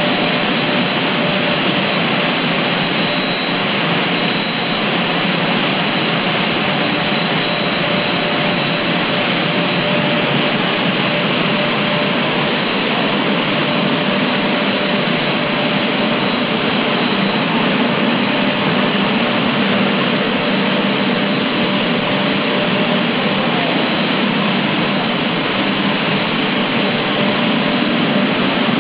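Parallel twin-screw extruder pelletizing line running in production, its motors and die-face hot cutter making a steady, loud machine noise with a faint steady whine in it.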